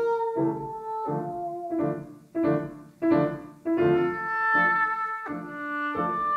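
Piano playing a classical chamber-music passage in short, detached chords, with a woodwind sounding alongside.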